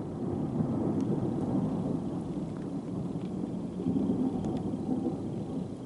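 Low, rolling rumble of thunder heard through a window, swelling slightly about a second in and again around four seconds, with a few faint ticks over it.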